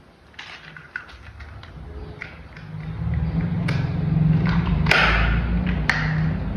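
Small clicks and knocks of plastic toy parts being handled and fitted together. About three seconds in, a louder low hum joins them.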